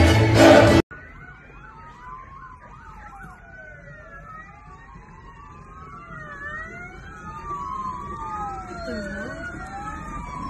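Under a second of loud choir singing cuts off abruptly. Then several police car sirens wail at once, their rising-and-falling tones overlapping and slowly growing louder as the cars approach.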